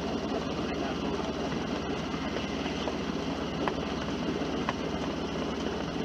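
A sailboat's engine running steadily as the boat motors into harbor, a constant low hum under a steady wash of wind and water noise.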